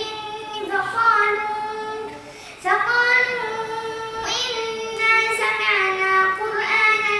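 A young boy's voice reciting the Quran in melodic tajweed chant, holding long drawn-out notes, with a short breath about two and a half seconds in.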